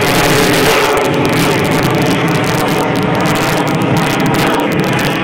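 Loud, steady jet noise from an F-22 Raptor's twin Pratt & Whitney F119 afterburning turbofans as the fighter flies overhead.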